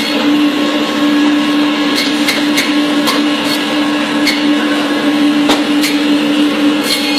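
Electric bone-cutting saw running steadily with a loud motor hum while cutting goat bone, with irregular sharp clicks throughout.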